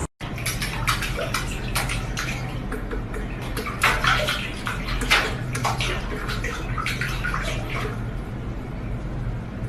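Water running and splashing, with irregular splashes over a steady rush; the louder splashes come about four and five seconds in.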